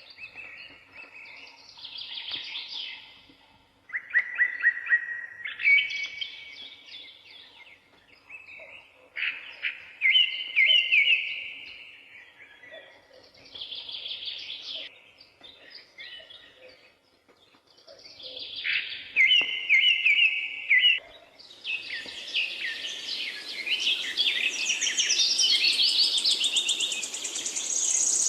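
Birds singing: phrases of quick, repeated notes come a few seconds apart, and about three-quarters of the way through a denser chorus of several birds with higher, faster notes takes over.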